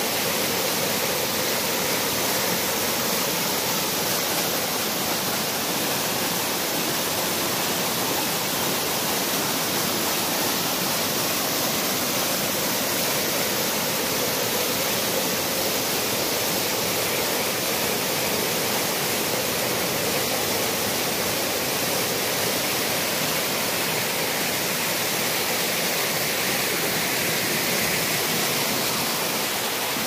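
Stream water rushing and splashing down a steep rock slab at the head of a waterfall, close by: a steady, unbroken rush.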